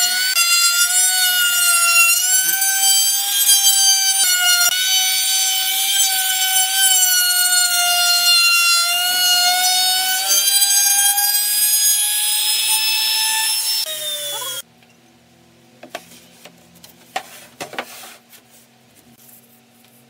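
Handheld trim router running at full speed as it cuts a wooden ring, a high whine whose pitch dips and recovers with the load. About fourteen seconds in it spins down and stops, followed by a few faint clicks and taps.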